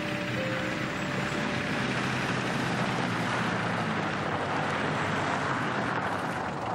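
Ford Ranger pickup truck driving on a gravel road: its engine running and its tyres crunching over the gravel in a steady noise.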